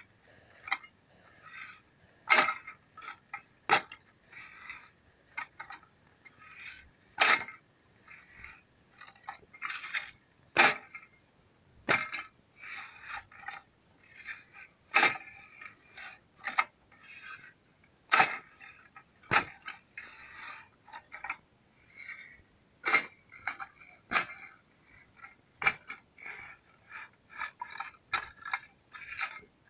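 Manual hand plough with metal tines and wooden handles being worked through dry soil: irregular sharp knocks and clinks from the tines and frame, with crunching of soil clods breaking up between them.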